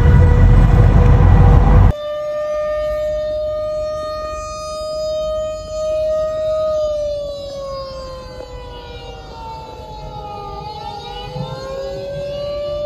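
Civil defense air-raid warning siren sounding: a steady pitched wail that slowly falls in pitch and then rises again, the undulating warning tone. The first two seconds are louder, with a steady tone over a heavy rumble, before a sudden change to a cleaner recording of the siren.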